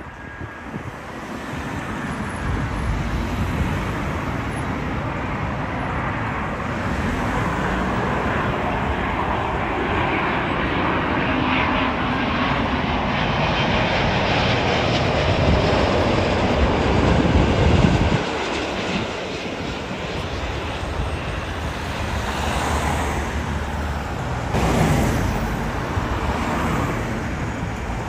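Jet engines of a British Airways Airbus A350 airliner on landing approach, passing low overhead. A broad rush grows steadily louder to a peak about two-thirds of the way through, drops off suddenly, then swells briefly once more.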